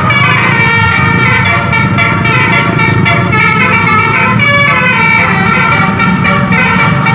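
Tourist bus's 'telolet basuri' musical air horn playing a melody of stepping notes, with the bus's engine running underneath.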